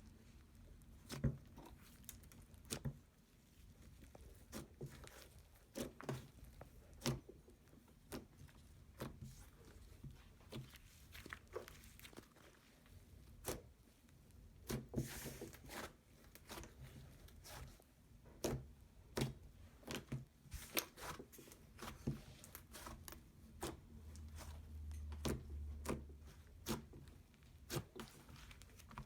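Slime being squished, poked and stretched by hand, making an irregular run of sharp little clicks and crackles.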